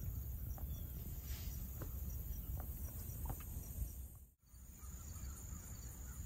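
Steady high-pitched insect chorus over a low rumble, with a brief dropout about four seconds in.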